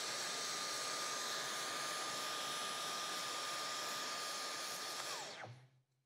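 Dyson cordless stick vacuum running steadily with a high whine while it pulls air through a Getxent RASCO odour-sampling tube. About five seconds in it is switched off, and the whine drops in pitch as the motor winds down to silence.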